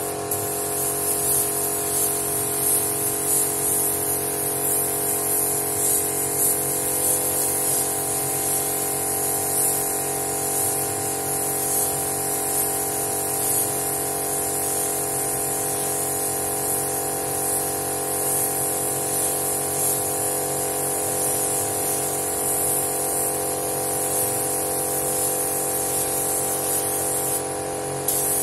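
Gravity-feed air spray gun hissing steadily as it sprays paint, over a steady droning hum. The hiss cuts out briefly near the end as the trigger is released.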